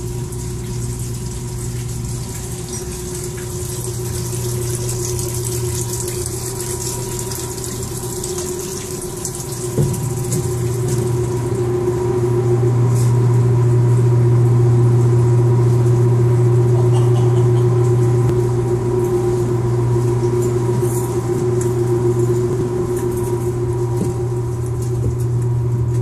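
Steady deep hum of hydroelectric generating-station machinery, with a rushing hiss over it. A single sharp knock comes about ten seconds in, and soon after the hum grows louder.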